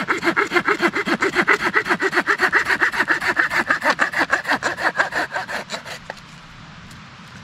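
Hand saw cutting through a piece of wood with quick, even back-and-forth strokes that stop about six seconds in.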